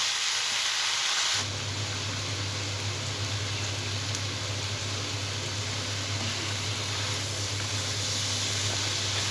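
Broad beans sizzling as they fry in oil with spices. About a second and a half in, the sizzle abruptly softens and a steady low hum sets in under it.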